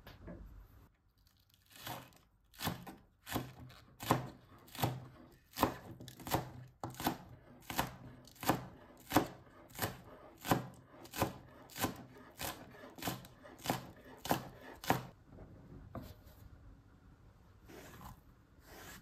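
Kitchen knife slicing spring onions on a plastic cutting board: a steady run of about twenty chops, roughly one every 0.7 seconds, stopping a few seconds before the end.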